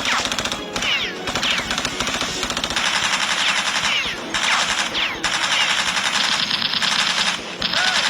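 Rapid automatic gunfire in several bursts of one to two seconds, with short breaks between them.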